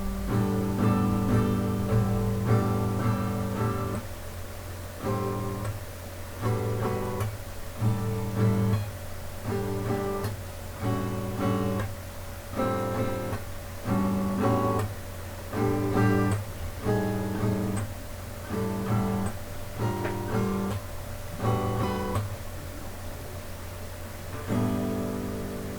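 Music: acoustic guitar strumming short chords with brief gaps between them, roughly one a second.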